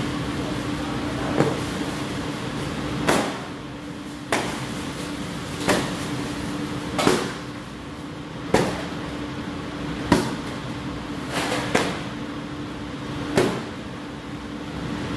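Thin paratha dough being lifted and slapped down onto a stainless-steel table to stretch it: about ten sharp slaps, roughly one every second and a half, over a steady low hum.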